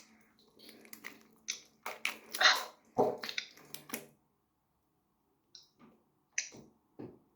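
Lotion-coated foam squishy toy being squeezed and worked in the hands, giving wet, slippery squelches in irregular bursts that stop about four seconds in, with a few faint squelches near the end.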